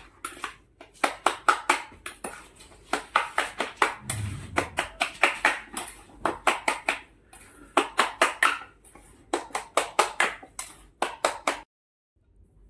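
A steel spoon clinking and knocking against a steel bowl while mashing chokha of roasted aubergine and tomato, in quick bursts of several clinks a second. It stops suddenly near the end.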